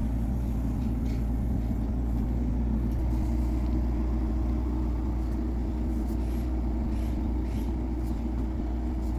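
Backhoe's diesel engine running steadily with a low rumble, with a few faint short clicks late on.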